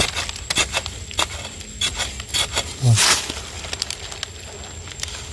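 Metal digging spade scraping and chopping into dry, sandy soil, with dry leaf litter crackling and a run of short scrapes and knocks; the loudest scrape comes about three seconds in.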